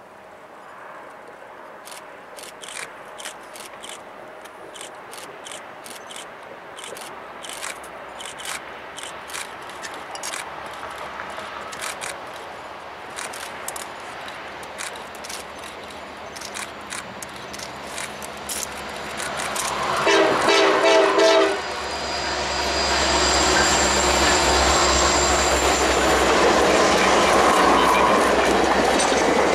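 Pennsylvania Railroad EMD E8 diesel passenger locomotives approaching. About two-thirds of the way in they sound a multi-note horn chord for a second or two, the loudest moment. Then they pass close with a heavy diesel rumble, followed by the rush and clatter of the passenger cars rolling by, with a thin high wheel squeal.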